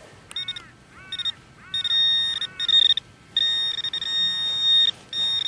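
Metal detector signal tones over a buried metal target. First come four short tones that rise and fall in pitch, then steady high beeps, the longest running for about a second and a half.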